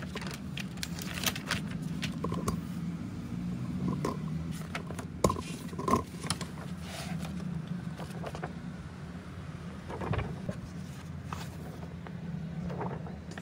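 Glossy magazine pages being handled and turned: short paper rustles and flaps every second or two, the sharpest about five and six seconds in, over a steady low hum.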